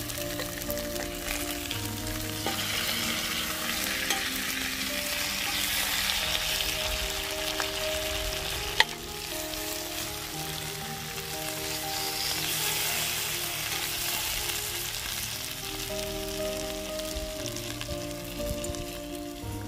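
Marinated chicken legs sizzling as they fry in butter in a stainless-steel pot, being turned with a slotted spoon, with one sharp tap about halfway through. Background music with sustained notes plays underneath.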